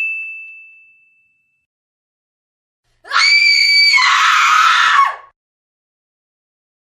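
Horror sound effects: a single high ding rings out and fades over about a second and a half. About three seconds in comes a loud, high-pitched shriek lasting about two seconds, held steady at first and then turning rougher and lower before it cuts off.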